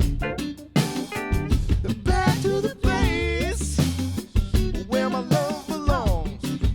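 A band playing a song: drum kit and bass under a lead line that slides and bends in pitch.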